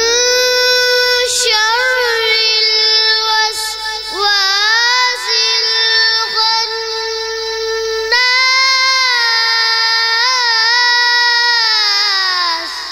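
A young boy reciting the Quran in the melodic tajweed style through a microphone and sound system. He holds long, high, ornamented notes, breaking for breath about four and eight seconds in. The last note ends just before the close and trails off in a long echo.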